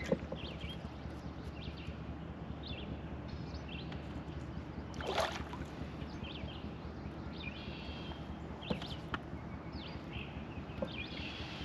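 Open-water outdoor ambience from a small fishing boat: a steady low hum with scattered short high chirps, likely birds. A brief rush of noise comes about five seconds in.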